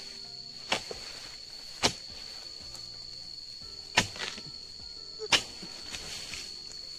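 Four sharp, irregularly spaced blows of a steel harvesting chisel chopping into the base of an oil palm's fronds and fruit-bunch stalk to cut a ripe bunch free.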